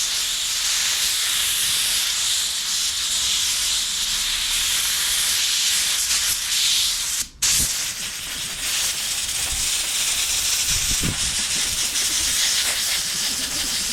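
Compressed-air blow gun hissing steadily as it blows dust out of a lawn mower air filter. The air stops for a moment about seven seconds in, then starts again.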